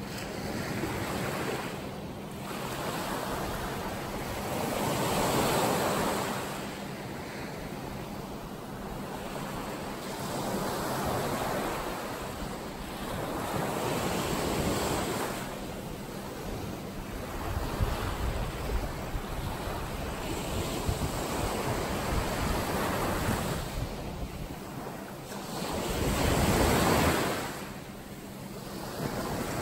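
Ocean waves washing in, swelling and fading every few seconds, the loudest surge near the end, with some wind rumbling on the microphone.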